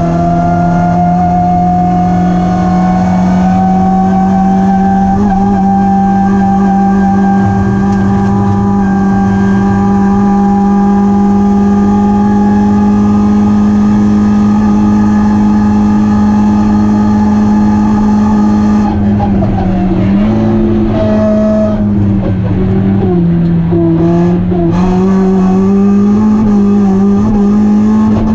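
BMW Compact's 1.9-litre four-cylinder engine heard from inside the caged cabin, held at high revs and climbing slowly in a high gear. About two-thirds of the way through, the revs dip and waver several times, then rise again near the end.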